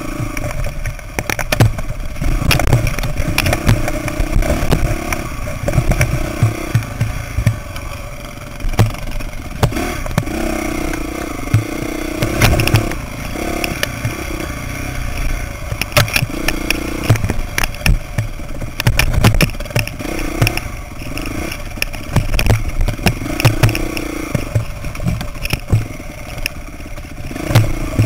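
Dirt bike engine on a rocky single-track trail, revving up and easing off again and again every few seconds. Frequent rattles and knocks from the bike bouncing over rocks.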